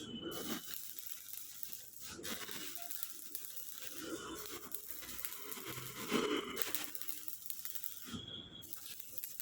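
Electric arc welding crackling and sizzling steadily. The arc breaks off briefly about two seconds in and again near the end.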